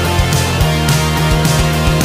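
Rock music with distorted guitar, a steady drum beat and bass.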